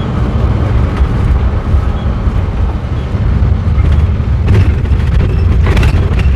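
Steady low rumble of engine and road noise from a vehicle descending a mountain pass, heard from inside the cab, with a few brief sharper sounds near the end.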